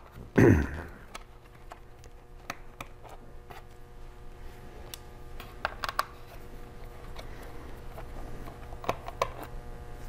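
Scattered light clicks and taps of a small Phillips screwdriver working the screws out of a laptop's bottom panel.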